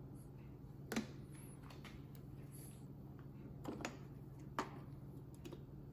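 A few light clicks and knocks from small engine parts being handled and worked loose during a teardown, over a steady low hum.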